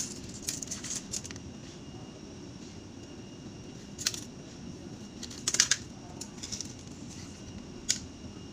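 Light scratches and clicks from handling a steel tape measure and pencil while measuring and marking, a few sharper ones about four, five and a half and eight seconds in, over a steady low hum.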